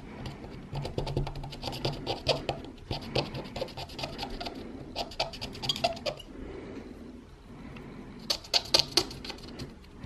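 Cotton swab scrubbing the metal battery contacts of a small plastic board to clean off battery corrosion: a fast run of small scratches for several seconds, a pause, then a short burst of sharper scratches near the end.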